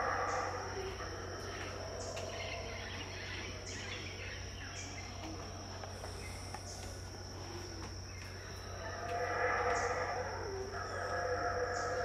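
Yucatán black howler monkeys roaring in the dawn chorus. The calls fade just after the start and swell back louder about nine seconds in and again near the end, over a steady high-pitched insect drone.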